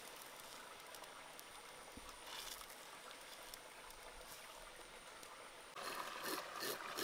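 Pot of water boiling faintly, with a snake being dipped in it. Near the end, a knife starts scraping the snake's scales in rasping strokes, about three a second.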